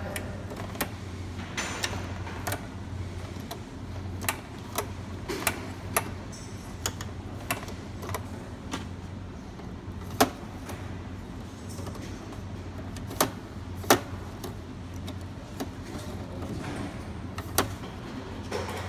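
Mechanical stoppers on a karakuri roller-rail rig snapping and knocking as they are worked and workpieces run along the rails and stop: some twenty sharp metallic clicks and knocks at uneven intervals, the loudest about ten and fourteen seconds in. A steady low hum runs underneath.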